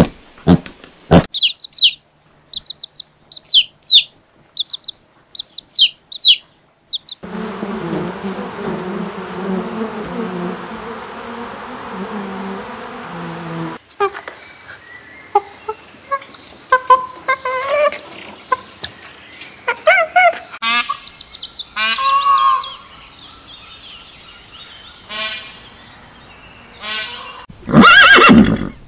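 Animal sounds cut one after another: short sharp squeaks and chirps with the piglets, a stretch of steady noise, then macaques' squeaky calls, and near the end a horse whinnying, the loudest sound.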